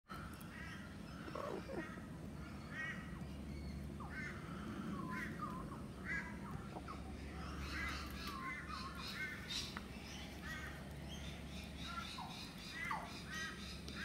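Crows cawing among many other short, repeated bird calls, over a low steady hum.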